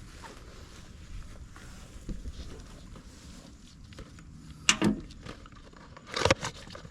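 Handling noises: a sharp knock about five seconds in, then a short run of clattering knocks about a second later.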